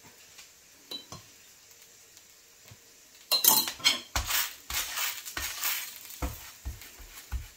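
Metal utensil knocking and scraping on a dosa griddle, a run of clinks and knocks starting about three seconds in, over the faint sizzle of the dosa cooking in oil.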